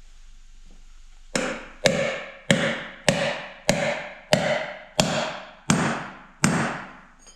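Hammer driving a seal-driver disc onto a new wheel-bearing race, seating it in a front wheel hub. About nine evenly spaced metal-on-metal strikes start a little over a second in, each ringing briefly and fading.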